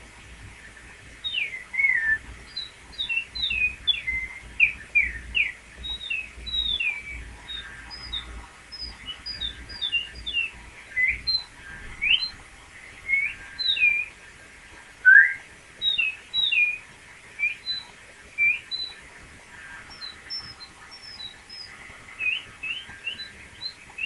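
A person whistling improvised birdsong: a long run of short, very high chirps and quick sliding notes, some rising and some falling, in phrases with brief pauses between them.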